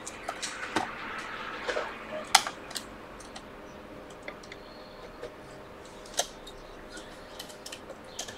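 Scattered small clicks and taps from fingers pressing the display, battery and charging-port flex connectors onto an iPhone XR's logic board, with a soft rustle of handling in the first couple of seconds. The loudest click comes about two and a half seconds in, and another sharp one just after six seconds.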